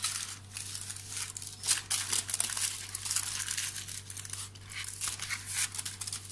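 Butter paper lining a baking pan crinkling and rustling as hands press and coil a dough roll into it, in irregular crackles.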